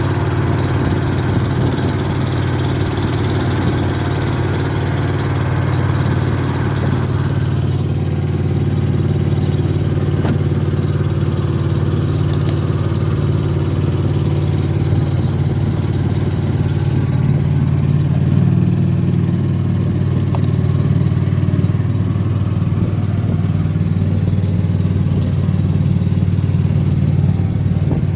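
An engine running steadily at an even speed, with a constant low hum; some higher hiss on top fades about a quarter of the way in.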